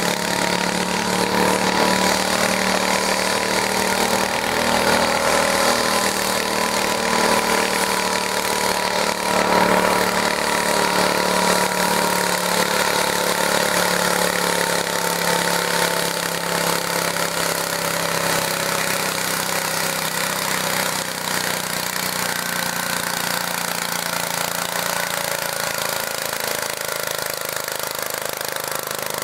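Garden tractor engine running steadily, its pitch sagging slightly and the sound easing off a little in the second half.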